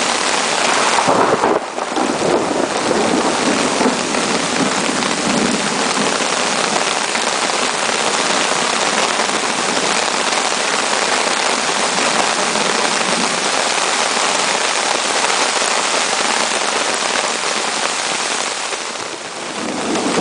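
Heavy rain pouring steadily on trees and foliage, a loud, dense, even hiss with a brief dip about two seconds in and another near the end.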